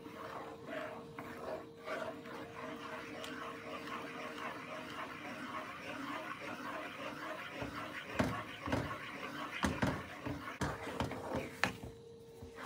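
Wooden spatula stirring and scraping a thick, bubbling milk-powder mixture for khoya in a nonstick pan, a continuous sloshing rustle with a steady faint hum underneath. Several sharper knocks of the spatula against the pan come in the second half.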